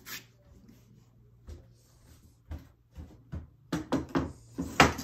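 Scattered knocks and thumps of things being handled and set down in a small room: a few single knocks at first, then a quicker, louder cluster near the end.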